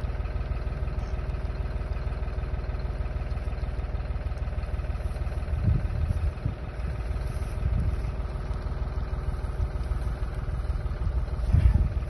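An engine idling steadily, with a few low thumps along the way.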